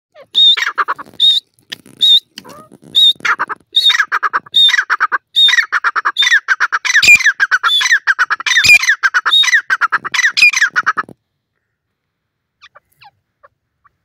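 Grey francolin calling loudly: a run of repeated calls, each a high opening note followed by a quick string of lower notes. The calls come faster and run together from about halfway, and stop about eleven seconds in.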